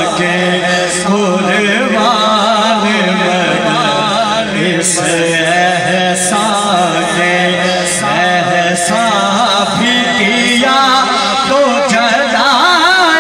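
A man singing a naat into a microphone through a sound system, in long melodic lines with wavering, drawn-out notes.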